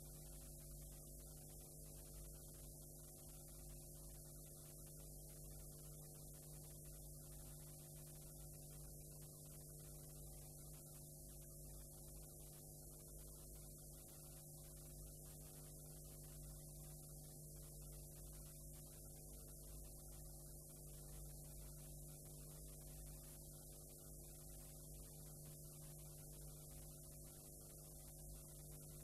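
Near silence: a faint steady electrical hum made of several tones, under an even hiss. This is the playback noise of a blank stretch of videotape.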